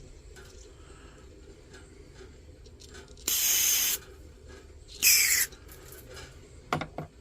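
Two short bursts of air hissing through a small lantern part, the first about 3 seconds in and the second a little later with a faint falling whistle, then two light clicks near the end.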